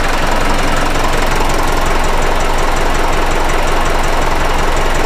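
Deutz Intrac 2003 tractor's air-cooled diesel engine running steadily with an even low chugging beat as the tractor moves off slowly.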